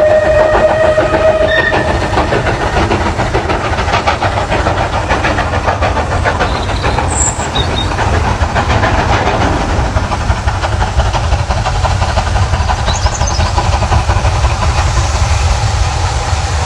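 Steam train running along the track: a steady low rumble with a fast rhythmic clatter. A short whistle blast sounds at the start and stops about a second and a half in.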